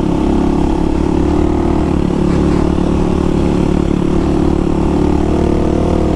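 Single-cylinder four-stroke trail motorcycle engine running at a steady pitch, cruising on a dirt road.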